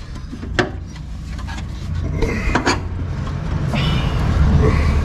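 Metal clinks and scraping as a greased suspension bolt is lined up and wiggled into the lower arm mount of a coilover, with one sharp click about half a second in, over a steady low rumble.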